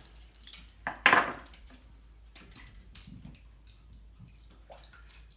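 Potatoes being cut and peeled by hand at a kitchen counter: scattered light clicks and taps of knife and peeler on the cutting board and bowls, with one louder clatter about a second in.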